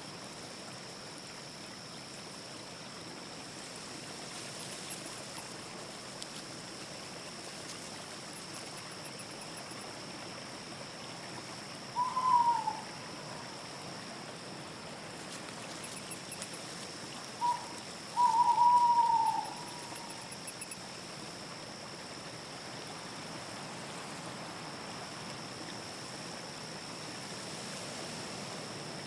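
An owl hooting twice against a steady night background. The first hoot comes about twelve seconds in; the second, some six seconds later, is a short note followed by a longer falling one. A constant high tone and a few brief, very high chirping trills run underneath.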